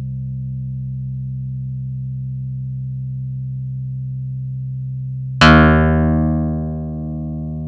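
Korg EX-800 synthesizer bass sound: a low note held steadily, then a new note struck about five seconds in with a bright attack that mellows over a second or so and keeps sounding.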